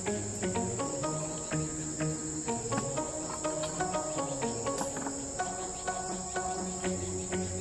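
Crickets chirring in a steady high-pitched drone, with music of plucked notes changing pitch playing over it.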